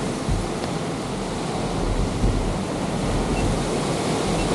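Surf breaking on a rocky shore, a steady rushing wash of waves, with wind gusting on the microphone.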